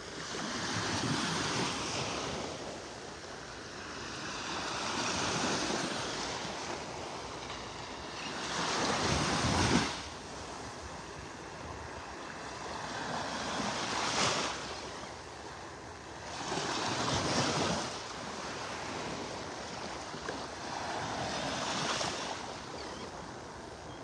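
Small Gulf of Mexico waves lapping and washing up on a sand beach, the surf swelling and fading about every four seconds.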